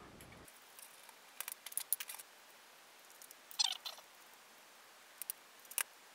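Light clicks and rattles of resin model parts and a small hex key as screws are undone and the frame of a prop pistol is taken apart, coming in several short clusters.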